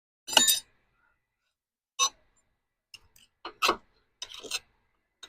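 Hive tool and wooden hive frames knocking and clinking as a beehive is worked open: about six short, sharp clinks and clacks, roughly one a second, the loudest near the start.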